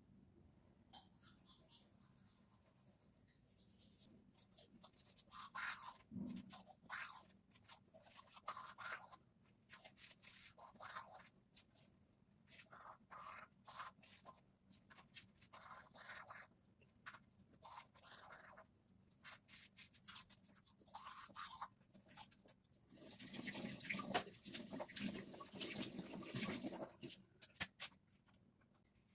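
Teeth being brushed with a toothbrush: faint, irregular scrubbing strokes, with a louder stretch of noise near the end.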